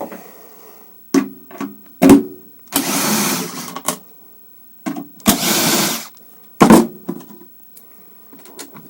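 A cordless power screwdriver's motor runs in two bursts of about a second each, taking out cover screws, with sharp clicks and knocks of the tool and metal parts between the runs.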